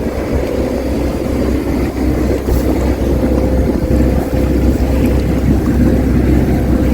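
A sailboat's inboard engine running steadily under way, mixed with wind.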